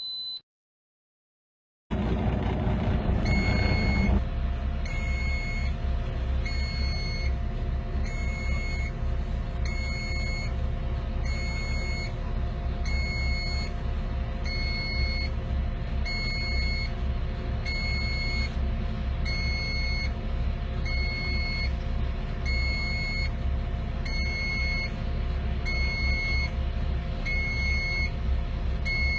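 A heavy machine's reversing alarm beeping about once a second over its engine running steadily. The sound starts about two seconds in.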